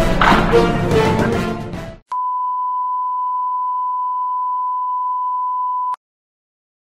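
Background music fading out, then a television colour-bars test tone: one steady high beep held for about four seconds that stops abruptly.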